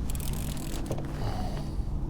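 A short scraping rustle in the first second, and a fainter one about halfway, over a steady low rumble of wind and water with a faint even hum.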